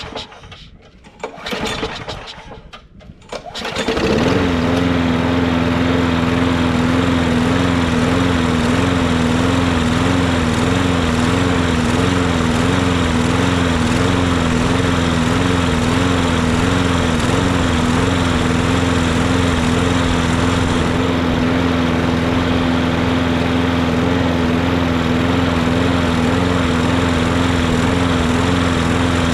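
Craftsman 6.5 HP push mower engine being pull-started, with uneven bursts before it catches about four seconds in. It then runs steadily with a wavering rise and fall in pitch that settles later: surging a little, which the owner thinks could come from running without an air cleaner.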